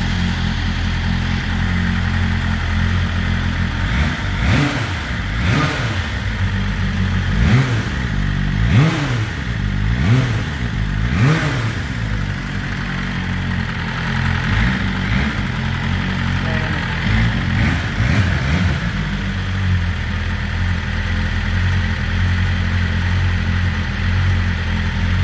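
BMW M1000RR's 999 cc inline-four running on an Akrapovic exhaust system. It idles steadily, then a run of about six sharp throttle blips rises and falls a few seconds in, followed by a few smaller blips, before it settles back to a steady idle.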